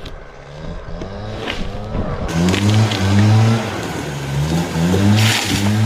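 An engine revs up and down several times over background music, with a brief loud rushing burst near the end.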